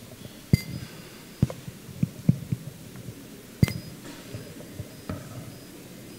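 A series of dull knocks and bumps, about five in the first four seconds, the loudest about half a second in and near the four-second mark, each of those two followed by a faint high ringing tone.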